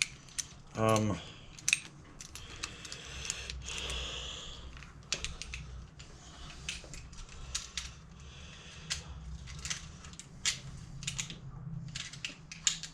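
Metal hand tools clinking and clattering in scattered, irregular knocks as they are handled and sorted through.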